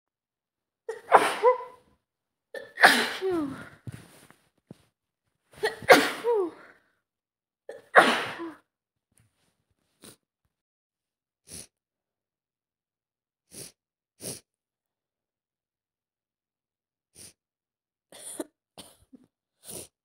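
A person with a head cold sneezing four loud times, roughly every two seconds. Then a string of short, quieter sniffles through a congested nose.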